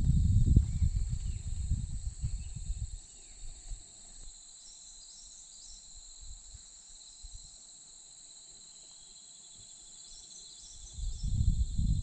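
Low rustling and knocking close to the microphone as a thrush settles onto its eggs in a twig nest, dying away after about three seconds and starting again near the end. Steady high insect trilling and a few faint distant bird chirps run underneath.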